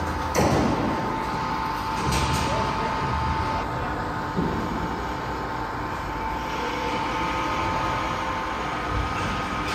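Steady industrial machinery noise with a constant high whine, broken by a few sharp metal knocks about half a second, two seconds and four and a half seconds in.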